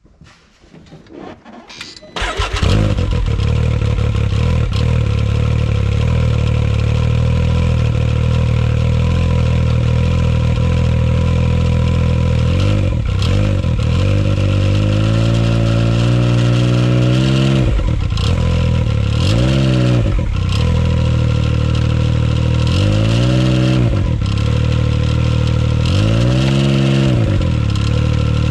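Can-Am Maverick X3's turbocharged three-cylinder engine cranks briefly and starts about two seconds in, then idles and is revved in a series of short blips from about twelve seconds in. The revs spin up the open CVT belt and clutches to test the engagement of a newly installed STM primary clutch.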